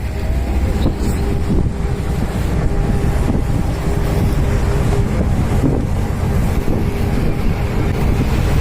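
A cruise ship's engine runs steadily with a low drone and a faint steady hum, while wind buffets the microphone.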